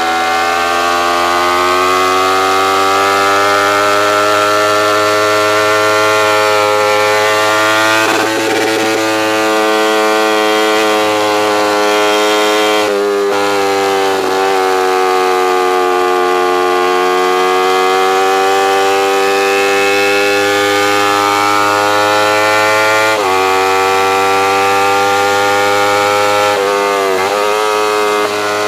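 Kawasaki Ninja 250R's parallel-twin engine running at high revs under racing load, heard from the bike with wind rush over it. Its pitch climbs slowly and drops sharply at gear changes, about 13 and 23 seconds in, with a brief wavering near the end.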